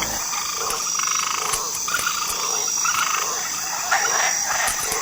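A chorus of frogs calling in short, repeated notes over a steady, high-pitched drone of insects.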